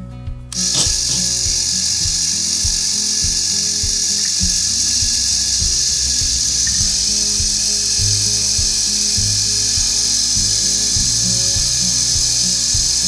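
Bronco 3500 electric winch running steadily, winding in its rope and pulling the boat up onto the trailer. It starts about half a second in, with bluegrass music playing underneath.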